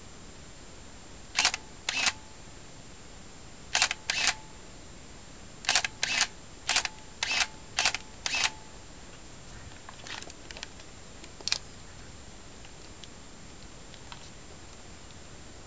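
Minolta Maxxum 400si film SLR firing its shutter about ten times, each release a short mechanical clack: two pairs, then a quick run of six. A few fainter clicks from handling the camera follow.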